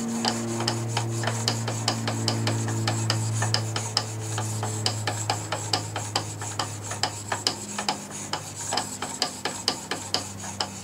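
A blade clamped in a roller-wheeled honing jig being stroked back and forth on a diamond sharpening plate, a steady scrape-and-rub at about three strokes a second as the bevel is honed. Low held music notes sound under it and fade out near the end.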